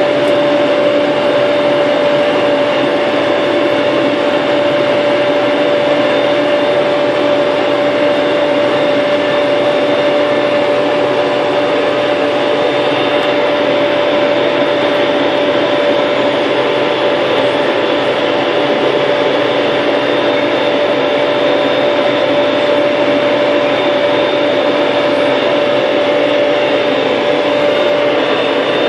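New Holland TD100D tractor's diesel engine running steadily under way at road speed, heard from inside the cab: an even drone with a steady whine held at one pitch.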